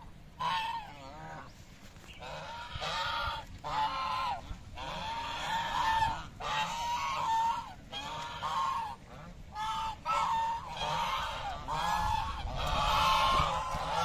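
A flock of white domestic geese honking: many short calls in quick succession, overlapping more and growing louder toward the end.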